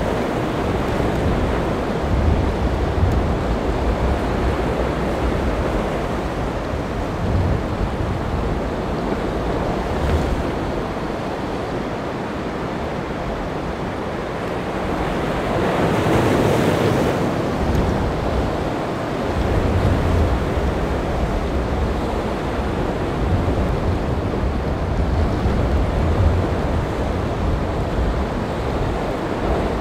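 Wind buffeting the microphone in low gusts over the steady rush of surf and rough water, with a louder rush of noise about halfway through.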